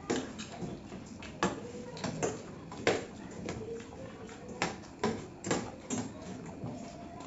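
Metal spoons clinking and scraping against stainless steel plates in irregular sharp clicks, with mouth sounds of eating.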